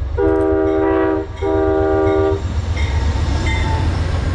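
Diesel freight locomotive's multi-note air horn sounding two blasts of about a second each, with a short break between, over the low rumble of the train.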